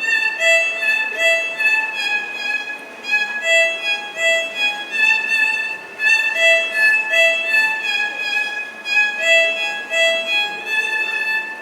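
Instrumental music: a melody of short notes in quick succession, starting and cutting off abruptly.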